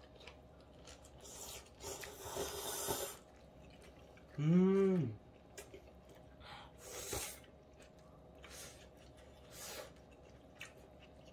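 A person eating tofu noodles, with short slurping and chewing noises and one brief hummed "mm" about halfway through.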